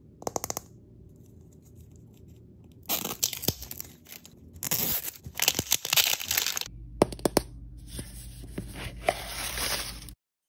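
Plastic wrapping and packaging on a toy capsule ball being torn open and crinkled, in loud crackling bursts with sharp clicks. A quick run of clicks comes about half a second in, and the sound cuts off just before the end.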